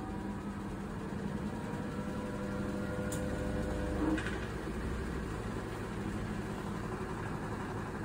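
Hitachi top-loading washing machine running noisily: a steady motor whine over a low rumble, with a brief louder knock about four seconds in, after which the whine drops away. This is the machine's occasional bout of noise.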